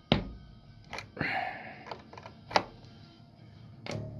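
Sharp pops and a brief scratchy crackle from the Behringer BX4500H bass amp head as the plug in its input jack is worked: about four clicks, with the crackle about a second in. This is the sign of an intermittent input connection cutting the signal in and out.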